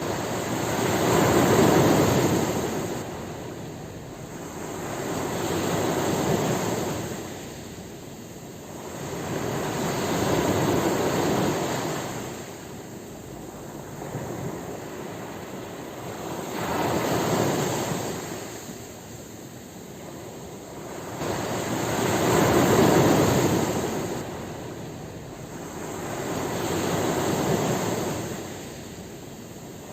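Ocean waves breaking and washing up the shore, each surge swelling and fading about every five seconds, the loudest two near the start and about two-thirds of the way through.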